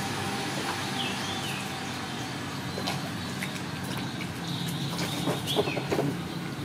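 Two cats eating rice from a plastic bowl: scattered soft clicks of chewing and the bowl being nudged, busiest a little after halfway, over a steady low background rumble. A few short high bird chirps come about a second in and again near the end.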